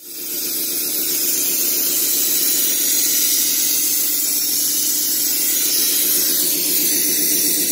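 A steady loud hiss of pressure being forced through the car's cooling hoses, with a low hum beneath it. The hoses are being flushed to clear out oil that a cracked oil cooler let into the coolant.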